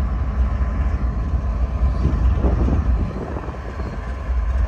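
Union Pacific GE diesel-electric locomotives idling on a stopped train: a steady low rumble.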